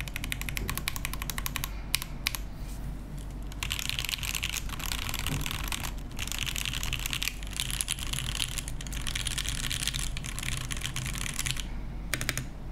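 Mechanical keyboard with lubed Banana Split linear switches and an aluminium plate (Geonworks F2-84) being typed on. It opens with a fast run of keystrokes, then a few single presses about two seconds in. After a short pause comes steady two-handed typing, which stops shortly before the end.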